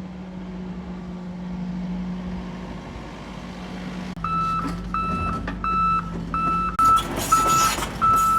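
XCMG XE80U excavator's diesel engine running steadily. About four seconds in, its motion alarm starts beeping about one and a half times a second as the machine begins to move, and louder machine noise joins in near the end.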